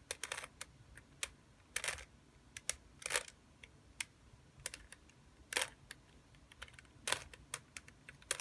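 Rubik's cube being turned through an algorithm: a run of irregular sharp plastic clicks, with a longer scraping turn every second or two as the layers snap into place.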